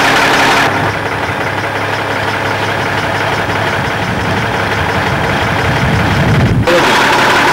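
Heavy lorry engine idling with a steady low hum. The sound cuts abruptly about a second in and again near the end, and the low rumble grows toward the end.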